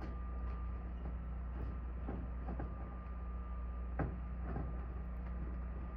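A few scattered knocks and scrapes from work on a barn roof, the loudest about four seconds in, over a steady low hum.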